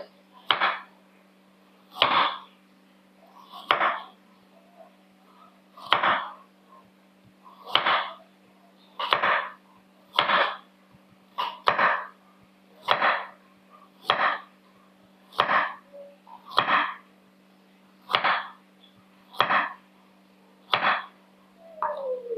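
Kitchen knife slicing a carrot into rounds on a wooden cutting board, each cut ending in a sharp knock of the blade on the board, at roughly one cut every second and a half.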